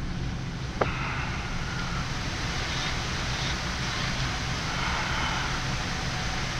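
Steady rush of air and air-conditioning noise on a Boeing 787 Dreamliner flight deck, with a low constant hum and a single sharp click about a second in.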